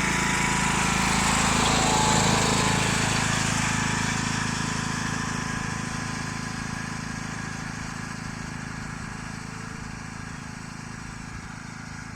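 Tractor engine running steadily, growing louder for about two seconds and then fading gradually.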